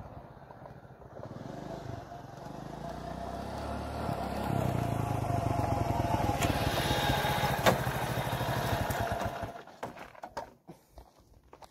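Small motorcycle engine running as the bike rides up close and grows louder, then cutting out about nine and a half seconds in, followed by a few short clicks and knocks.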